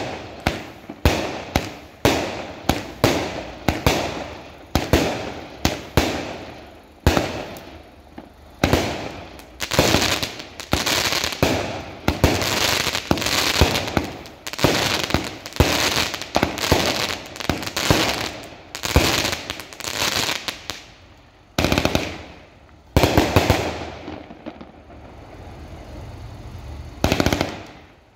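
A Pyro Slut 'Salute and Color' consumer firework cake firing a rapid volley of aerial shells. Sharp bursts come about two a second, each trailing off in crackle. There is a short lull about three quarters through, then a few more shots near the end.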